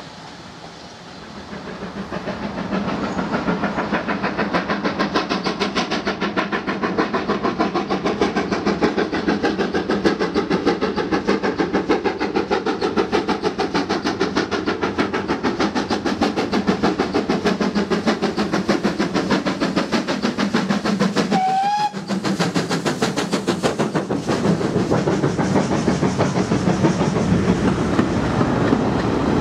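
Steam locomotive approaching and passing with rapid, even exhaust beats, giving a short whistle blast about three-quarters of the way in, then its coaches rolling by with a clickety-clack of wheels over rail joints.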